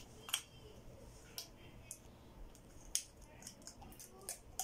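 Plastic screw cap of a black ink refill bottle being twisted and handled, giving about six sharp, irregular plastic clicks.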